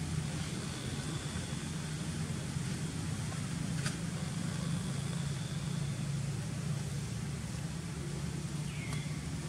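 Steady low outdoor rumble with a brief high chirp near the end.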